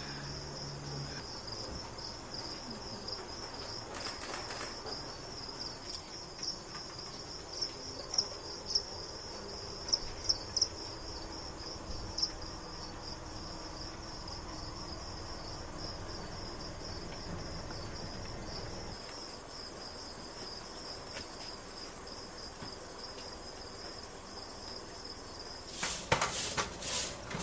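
Crickets chirping in a steady, pulsing chorus. Near the end come several scratchy strokes of a straw broom sweeping a floor.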